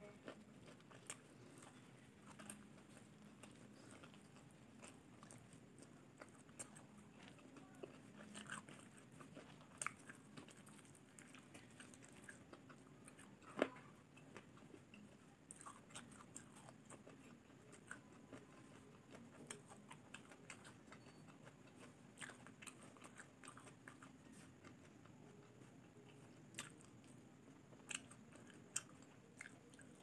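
Quiet, close-miked chewing of chicken adobo, with scattered small mouth clicks and one sharper click about halfway through.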